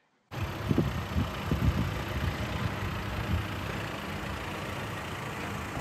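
Steady outdoor car park ambience: a low rumble of vehicle traffic under an even hiss. It starts abruptly about a third of a second in.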